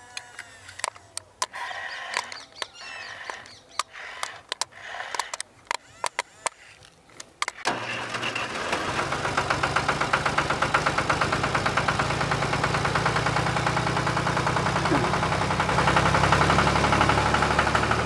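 Sharp irregular clicks and ticks with bird chirps. About eight seconds in, an engine sound starts and keeps running, with a fast even pulse over a low hum; it is the loudest thing.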